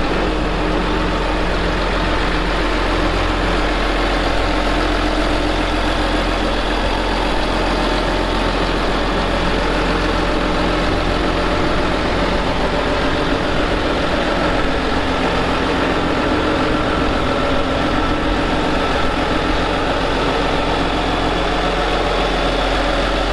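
John Deere 7920 tractor's six-cylinder diesel engine idling steadily.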